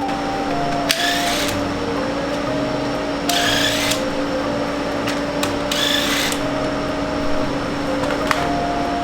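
Three short whirring bursts of a power tool, about half a second each, over background music.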